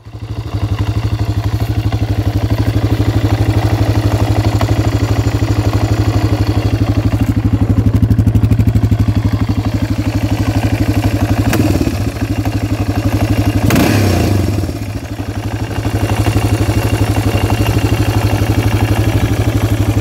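1991 Yamaha TT600's air-cooled single-cylinder engine idling with a ticking, rattling noise. The noise comes from a loose locking nut on the balance shaft.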